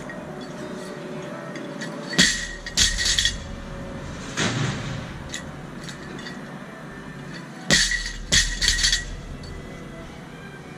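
Loaded barbell dropped onto rubber gym flooring twice, about five seconds apart. Each landing is a sharp bang followed by a short run of rattling bounces as the plates settle.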